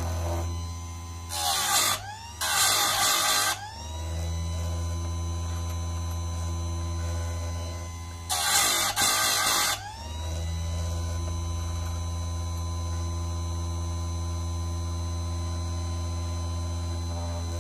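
Einhell electric chain sharpener's motor running with a steady hum, its grinding wheel brought down onto the saw chain's cutters three times: two harsh grinds close together near the start and a third about nine seconds in. Each grind lasts about a second, and the motor's pitch dips as the wheel bites.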